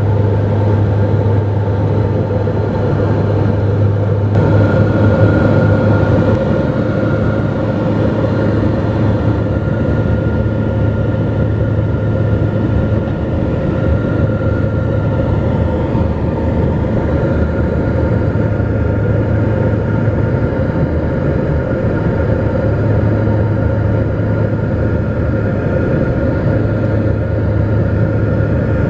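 Twin turboprop engines and propellers of a Dornier 228 droning steadily, heard inside the cabin in flight: a constant low hum with a few steady higher tones. The engine note shifts slightly about four seconds in.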